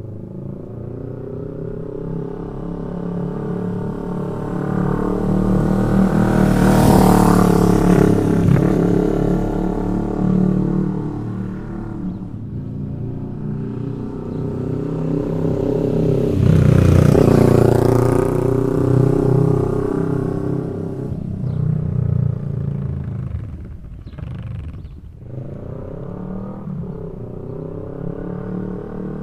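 Kawasaki Vulcan S 650 motorcycle's parallel-twin engine and exhaust riding past twice. Each pass swells to a loud peak, and the engine note drops in pitch as the bike goes by. Between the passes it runs more faintly in the distance.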